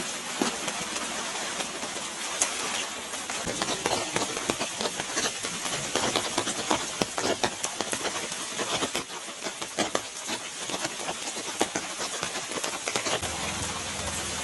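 Rain falling steadily, a dense hiss with many small drops tapping close by.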